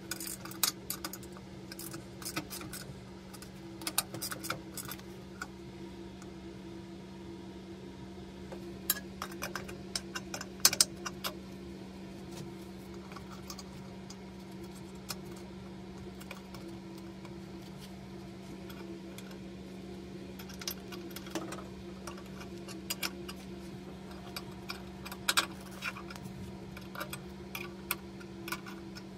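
Scattered light metallic clicks and clinks of steel jig parts being handled and adjusted, over a steady low hum.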